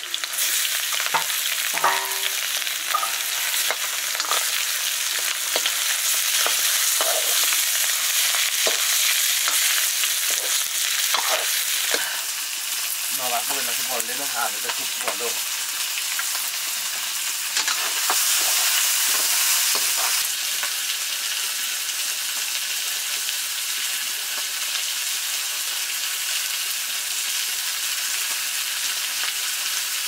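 Bird-meat curry frying in hot oil in a pan: a steady sizzle, with stirring scrapes and knocks in roughly the first twelve seconds.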